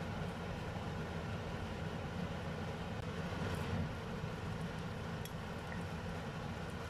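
Steady low rumble with a hiss from the stove while sauce cooks in a wok, with a faint tap about five seconds in.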